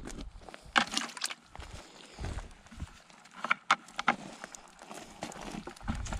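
Footsteps on a dry dirt bank and the handling of a wire-framed yabby net: scattered short clicks, rattles and rustles, a few of them sharp.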